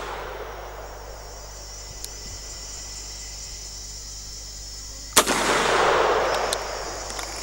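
A single .44 Magnum shot from a Rossi Circuit Judge revolving rifle about five seconds in: a sharp crack followed by a long rolling echo that dies away over about two seconds. At the start, the echo of the previous shot is still fading out.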